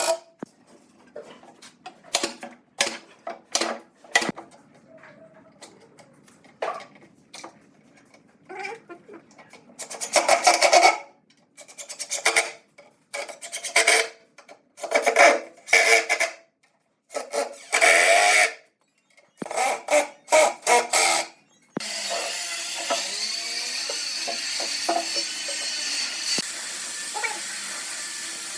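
Hand tool scraping and rasping on wood in a series of separate, uneven strokes, then a steady hiss that runs on for the last several seconds.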